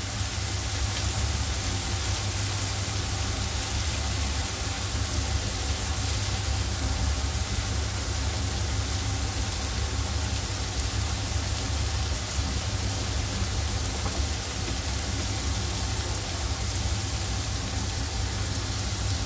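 Sliced onions sizzling steadily in hot oil in a kadhai, a continuous even frying hiss.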